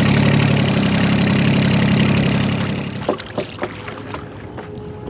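Small fishing boat's engine running steadily, then dying away about three seconds in as it is cut, followed by a few light knocks on the boat.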